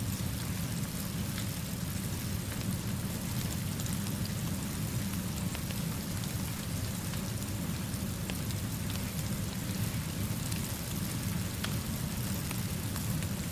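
Steady rainfall: an even, continuous hiss with a low rumble underneath and scattered faint ticks of individual drops.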